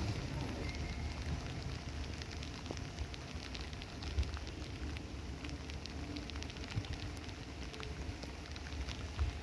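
Rain falling, a steady hiss with scattered drops ticking sharply, over a low rumble.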